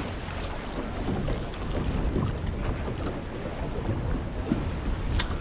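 Wind buffeting the microphone over choppy water lapping around a small boat, with a brief sharp swish near the end.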